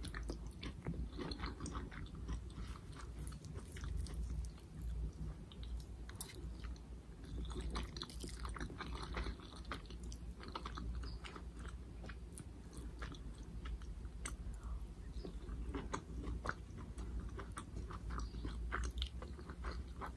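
Close-up chewing of instant noodles and vegetables, with many small, sharp wet mouth clicks over a low steady hum.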